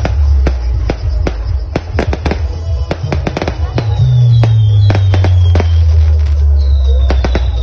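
Aerial fireworks going off in rapid, many-times-a-second cracks and bangs, with two high whistles falling in pitch, one about midway and one near the end. Under them, a horeg sound system plays music with heavy, steady bass.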